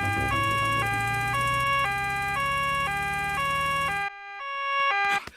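Cartoon two-tone siren of a doctor's car on its way, switching between a high and a low note about twice a second, over a low engine hum. The hum stops about four seconds in and the siren runs on briefly after it.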